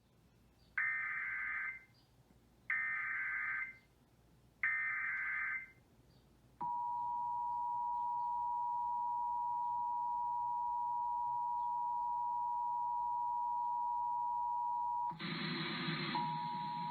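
Emergency Alert System tones: three short buzzy data bursts of the SAME header, each about a second long and two seconds apart, then the steady two-note EAS attention signal (853 and 960 Hz). Near the end a rougher, noisier sound joins, with the attention tone continuing under it.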